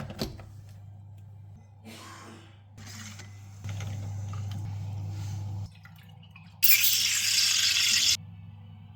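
Espresso machine at work: a click, a few short rustles, then a steady low hum for about two seconds as it runs. About a second later comes a loud rushing hiss, lasting about a second and a half and stopping abruptly.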